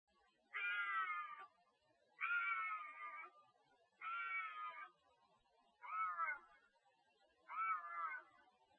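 Bobcat screaming to call for a mate: five yowling calls in a row, each about a second long with pauses of about half a second to a second between them, the last two shorter and rising then falling in pitch.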